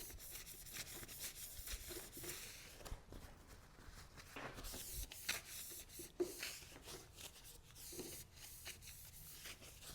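Faint, irregular rubbing strokes of a cloth wiping down a titanium slip-on exhaust muffler.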